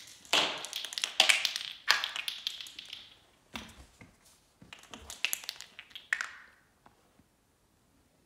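Small plastic ball clattering and bouncing on a tile floor as a cat plays with it: two bouts of quick, sharp taps, the second starting about three and a half seconds in.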